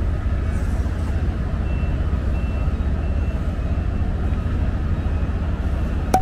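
Steady low drone of a passenger ferry's engines heard on board, with a sharp click near the end.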